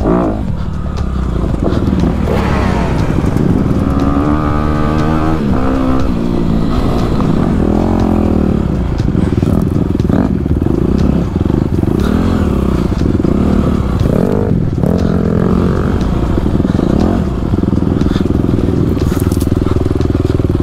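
Honda CRF250RX single-cylinder four-stroke dirt bike engine, revving up and down under the rider's throttle on a rough trail, with rattling and knocking from the bike over rocks and brush.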